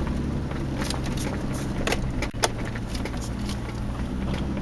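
Toyota Land Cruiser FZJ80's 4.5-litre inline-six running steadily as the truck crawls a rough dirt trail, heard from inside the cab, with the body and loose things clicking and rattling over the bumps. One sharp knock about two and a half seconds in.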